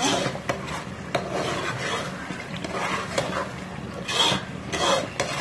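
Metal spoon stirring and scraping thick, cooked-down tomato paste against the sides and bottom of a metal cooking pot, in irregular scraping strokes with a few clicks of metal on metal. Two louder scrapes come near the end.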